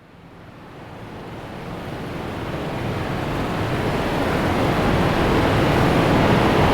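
Trailer-style riser sound effect: a rushing noise with a low rumble, building steadily from silence to loud.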